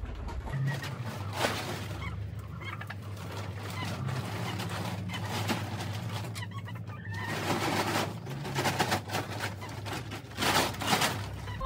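Chickens clucking, with a polyethylene tarp crackling and rustling loudly in several bursts as it is pulled and spread over the coop roof.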